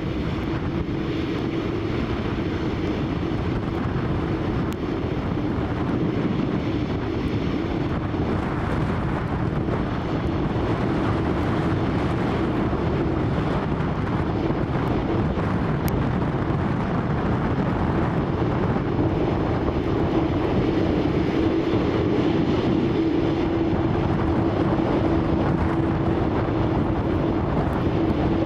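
Embraer E190 airliner arriving, its jet engines giving a steady rushing noise with one held hum that grows louder in the last third, under wind on the microphone.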